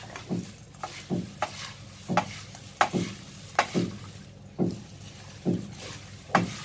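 A spoon stirring dry-roasted, crisp flattened rice (poha) with fried peanuts and cashews in a pan, in short scraping, rustling strokes about one to two a second, with a steady low hum underneath.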